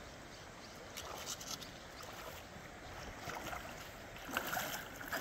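Water swishing and sloshing around a person's legs as they wade thigh-deep through a river, surging with each stride and a little louder near the end.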